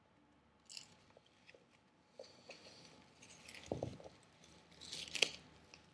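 Faint rustling and scattered light clicks of a sticker being peeled off a pomelo's rind as the fruit is handled, with a denser crinkly patch in the middle and a sharper click near the end.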